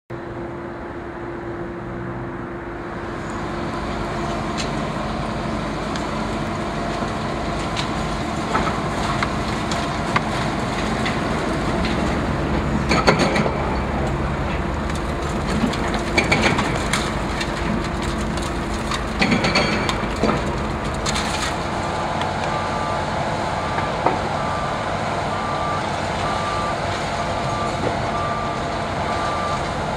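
Liebherr 954 demolition excavator's diesel engine running steadily under hydraulic load, with a few sharp crashes of concrete breaking away and falling midway through. About two-thirds of the way in, a reversing alarm starts beeping in a steady, even rhythm.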